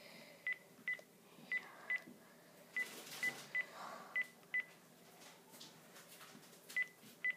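Phone keypad tones as a telephone number is dialled: about eleven short beeps of the same pitch, tapped in uneven bunches with pauses between them.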